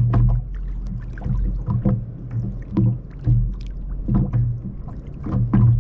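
Small waves slapping and knocking against the plastic hull of a sit-on-top kayak in irregular low thuds, about two a second.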